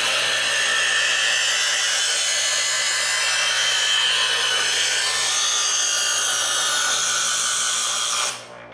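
Chef's Choice EdgeSelect 120 electric sharpener grinding the thick blade of an Argentine facón: a loud, steady hiss of steel against the spinning diamond abrasive wheels over the motor's hum. It cuts off shortly before the end as the blade is pulled from the slot.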